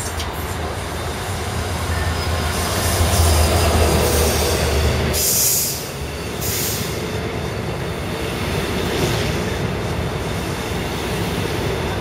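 Israel Railways train moving along a station platform: a low diesel locomotive rumble for about the first five seconds, then, after a brief dip, the steady rolling of double-deck passenger coaches on the rails.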